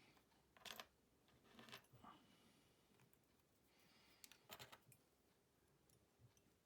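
Near silence, with a few faint clicks and rustles: one about a second in, one near two seconds, and one at about four and a half seconds.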